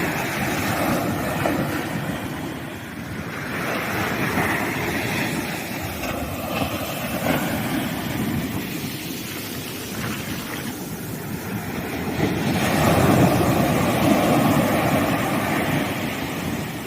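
Sea waves breaking on a sandy beach: a continuous wash of surf that swells and falls back in slow surges, the loudest surge coming about three-quarters of the way through.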